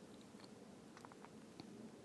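Near silence: faint room tone with a few soft, faint ticks about a second in.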